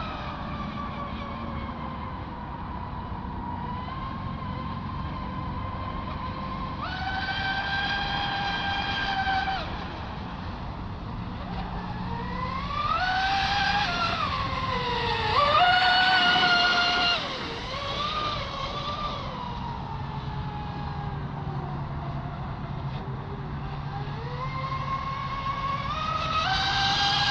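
TFL Zonda RC speedboat's electric motor whining at high pitch as the boat makes fast passes. The pitch jumps up when the throttle opens, bends up and down with each pass and with throttle changes, and drops several times, with a louder, steadier whine near the end.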